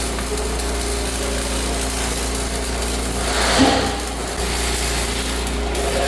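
Steady mechanical noise of power equipment running, with a brief louder burst about three and a half seconds in.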